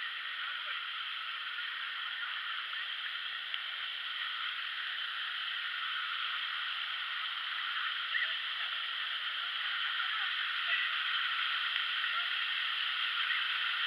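Steady rushing of falling water from a waterfall, with faint voices now and then in the second half.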